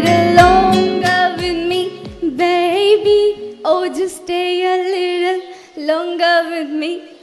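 A woman singing solo into a microphone in long held notes with vibrato. For the first three seconds she sings over backing music with a low regular beat; it then drops out and she carries on unaccompanied.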